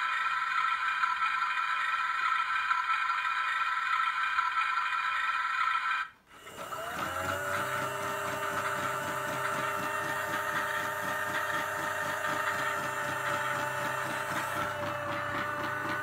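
Toy washing machine's small electric drum motor running with a steady whine, cutting out about six seconds in, then starting again, its pitch rising as the drum spins up before settling into a steady whine with a fast light rattle.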